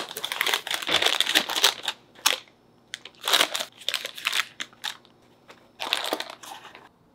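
Printed burger wrapping paper crinkling and rustling in three spells as a burger is folded up in it and set into a disposable clamshell box.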